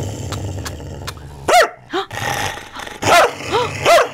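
Border collie growling low and steadily, then breaking into about five short, sharp snarling barks from about a second and a half in. It is a warning at someone who has come into her room.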